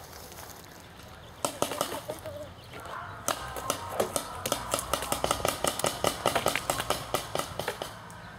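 Paintball markers firing: a few scattered pops about a second and a half in, then a rapid, irregular string of pops from about three seconds in that stops near the end.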